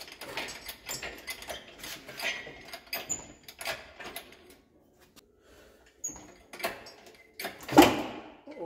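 Hydraulic engine hoist being pumped to lift a garden tractor engine: irregular clicks and clanks of the hoist and lifting chain, with a few short squeaks and a louder clunk near the end.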